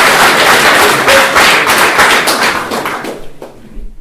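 Audience applauding: a dense patter of many hands clapping, dying away about three seconds in and then cut off.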